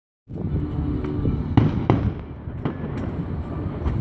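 Fireworks going off: a continuous low rumble of bursts with several sharp bangs, the loudest two about a second and a half and two seconds in.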